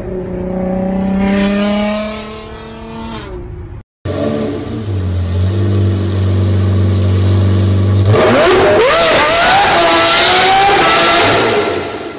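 A Nissan GT-R R35's twin-turbo V6 revs up as the car accelerates, its pitch rising for about three seconds before the sound cuts off. A Lamborghini Murciélago's V12 then idles steadily in a parking garage, and about eight seconds in it revs hard and pulls away, its pitch rising and falling.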